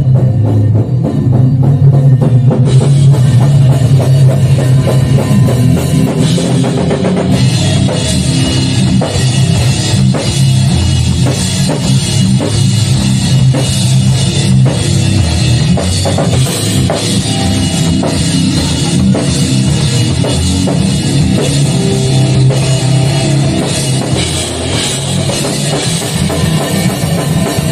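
Hardcore band playing loud rock music with a full drum kit, bass drum and cymbals. The sound thickens with more cymbal wash a few seconds in and again around seven seconds in.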